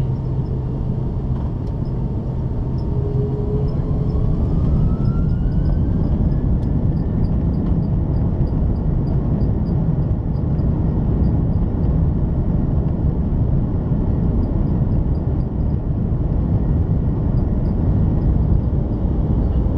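Cabin noise of an Airbus A330-200 on its takeoff roll, heard from a window seat beside the wing: a loud, steady rumble of engine and runway noise, with the General Electric CF6 engines' whine rising in pitch about four to seven seconds in as they spool up.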